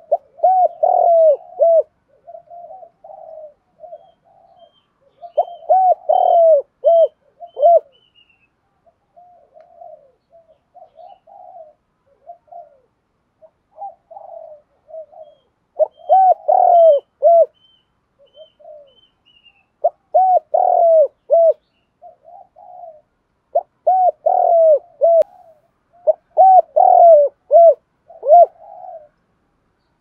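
Spotted dove cooing in bursts of quick, bubbling coo phrases, with softer notes between the bursts. This is the driving 'thúc' cooing that keepers play to provoke wild-caught doves into calling. A faint series of high short notes comes in twice.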